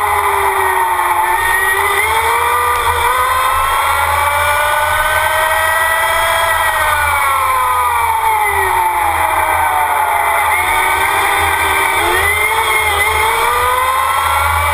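Onboard sound of the STUBA Green Team SGT FE11 electric Formula Student car driving a lap. The drive makes a high whine whose pitch climbs and sinks with speed through the corners, lowest about ten seconds in and rising again near the end. A steady low rumble of wind and road runs underneath.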